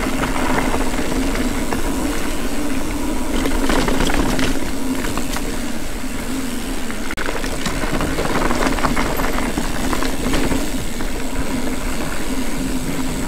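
Ibis Ripley mountain bike rolling along a dirt singletrack: a steady rolling noise from tyres and drivetrain, with scattered clatters and knocks as the bike goes over bumps.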